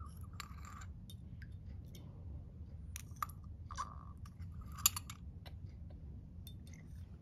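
Glassware being handled: a glass beaker and test tubes clinking and knocking, a scatter of short clicks, some with a brief glassy ring, the sharpest about five seconds in. A low steady hum lies under it.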